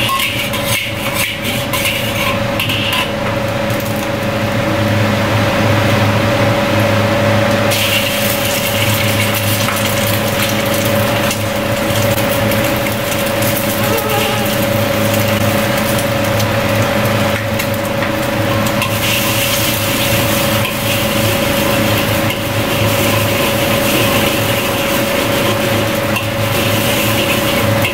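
Eggs frying in hot oil in a wok, sizzling, with a metal ladle scraping and clinking against the wok; the sizzle grows brighter in the second half. Underneath is a steady machine hum with one constant tone from the wok stove or kitchen ventilation.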